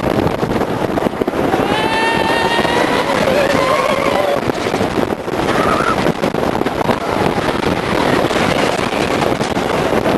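Onboard sound of a wooden roller coaster train running the course: loud, continuous rattling and rushing wind. Riders yell a couple of times, about two seconds in and again around five seconds.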